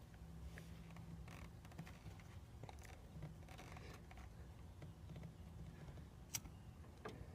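Faint scattered clicks and scraping over a low steady hum, with one sharper click about six seconds in.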